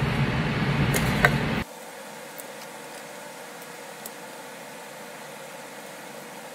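Steady rushing background noise, like a running machine, that cuts off abruptly about a second and a half in, leaving a faint hiss with a few light clicks.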